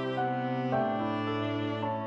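Background music: slow, held notes that change pitch a couple of times.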